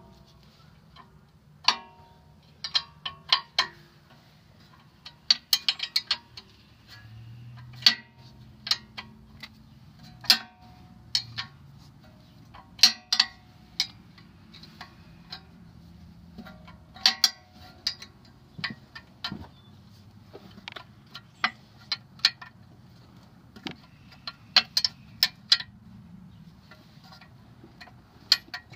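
Metal hand tools clinking and tapping on metal brake and hub parts: irregular sharp clinks with a brief ring, some single and some in quick runs of several.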